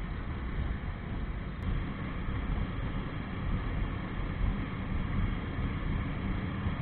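Jawa 42 single-cylinder motorcycle running at road speed, its engine buried under steady wind noise on the action camera's microphone.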